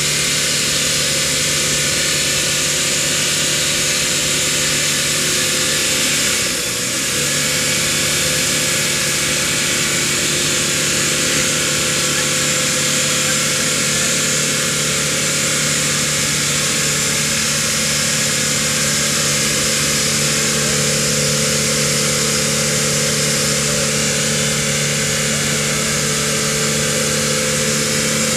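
Winch on a Toyota Land Cruiser 70 running steadily under load, with the engine going, as it drags the truck slowly through deep mud. The motor drops out briefly about six and a half seconds in, then picks up again.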